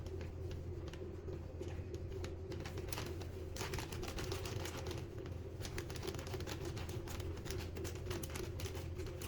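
Irregular clicking and crinkling of a plastic bag being handled while a self-tapping connector is twisted through it to make a hole. The clicks grow denser from about three and a half seconds in, over a steady low hum.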